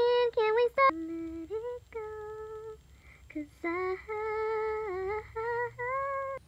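A woman humming a tune without accompaniment, in held notes that slide from one pitch to the next, with short breaks between phrases.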